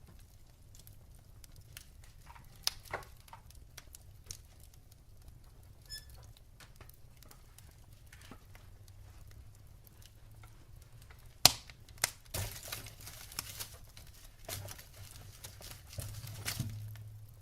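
Wood fire in a fireplace crackling, with scattered sharp pops from the burning logs; one loud pop comes about two-thirds of the way through, followed by a denser run of crackles.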